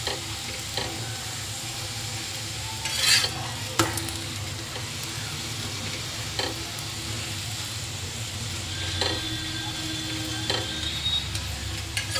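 Stuffed paratha sizzling in oil on a tawa griddle, with a metal spatula pressing and knocking against it a few times; the loudest stroke comes about three seconds in.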